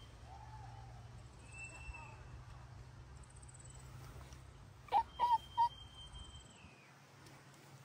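Three short, high-pitched squeaks or calls in quick succession about five seconds in, over a faint steady low hum.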